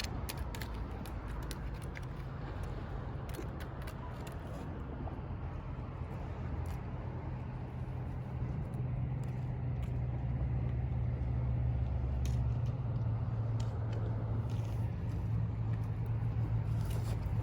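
Low, steady car engine and road drone heard inside a moving car's cabin, its pitch shifting slightly now and then, with a few faint clicks.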